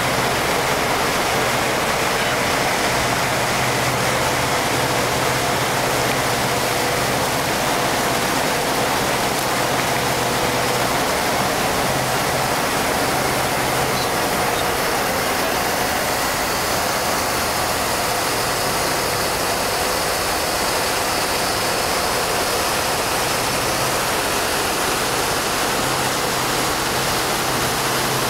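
A 1976 Silverline boat's motor runs steadily under way, a faint even hum under a steady rushing noise of water and wind.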